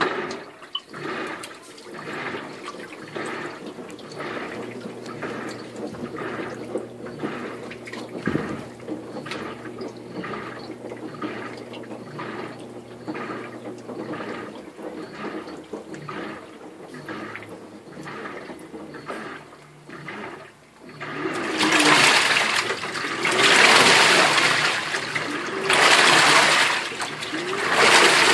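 Top-loading washing machine agitating a load of jeans in water on its jeans cycle: quick rhythmic swishes about one and a half a second over a low motor hum, then, about three-quarters of the way through, much louder sloshing surges of water every couple of seconds.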